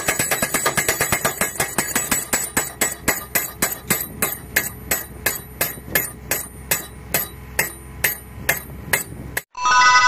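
Pile driver's hammer striking a steel post over and over, the blows quick at first, then slowing to about two or three a second, and stopping suddenly near the end. A bright chime sounds just after.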